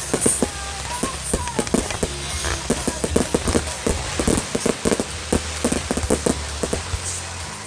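Fireworks bursting in rapid succession, a dense string of bangs and crackles heaviest in the middle, over music playing throughout.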